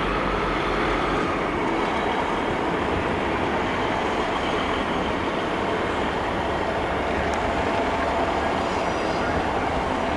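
Class 66 diesel freight locomotive, with an EMD two-stroke V12 engine, running steadily as it approaches slowly through the station.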